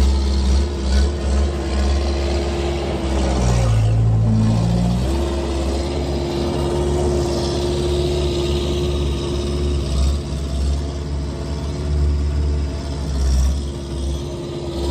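Skid steer engine running loud and unmuffled, the machine lacking a proper exhaust, its pitch shifting as the load changes, about four seconds in and again near the end.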